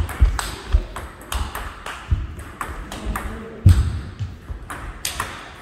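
Table tennis rally: the celluloid-type ball clicks sharply and repeatedly off the bats and the table at an uneven, quick pace. Low thuds of footwork on the wooden floor sit under the clicks, the heaviest about two-thirds through.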